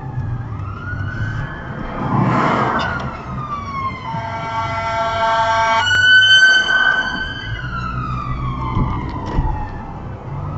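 Emergency vehicle siren wailing in slow rising and falling sweeps, holding one tone for a couple of seconds about halfway through, over the low steady running noise of a car.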